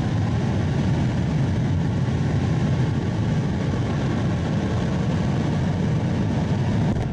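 Rocket engine firing on a static test stand: a loud, steady, deep rumbling roar that cuts off suddenly at the end.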